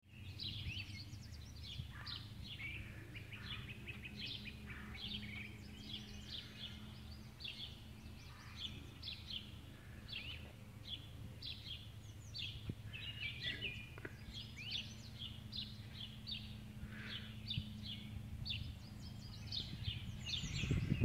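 Small birds chirping over and over, many short high chirps overlapping throughout, over a steady low hum.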